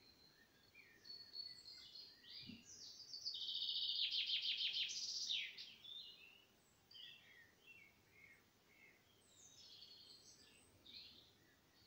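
Small songbirds calling and singing: thin high notes, then a loud, fast trill of about two seconds from about three seconds in, followed by scattered short chirps.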